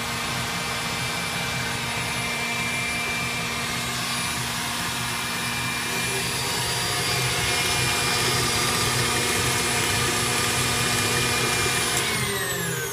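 KitchenAid tilt-head stand mixer running steadily, its beater creaming butter and sugar. Near the end it is switched off and its motor hum falls in pitch as it spins down.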